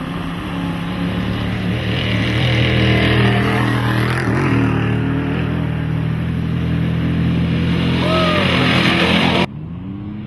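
Off-road race truck engine running hard at a steady pitch, with a rushing noise over it. About nine seconds in it cuts off abruptly to a quieter engine picking up revs.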